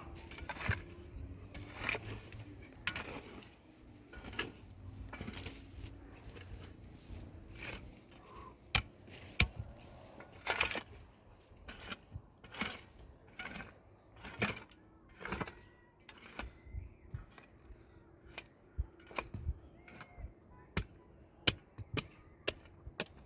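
Irregular sharp taps and knocks, roughly one every second or so, some much louder than others, from objects being handled or worked by hand.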